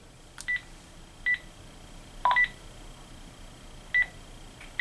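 Buttons pressed on a Panasonic DECT cordless phone, about five presses roughly a second apart, each a sharp click with a short high key beep; one press about two seconds in gives a lower beep.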